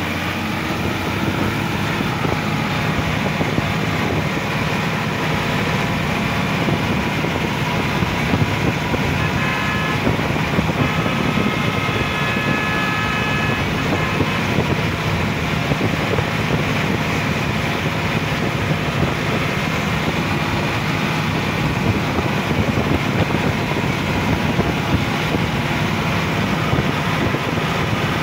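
Sonalika DI-50 RX tractor's diesel engine running steadily as the tractor drives along a paved road at speed.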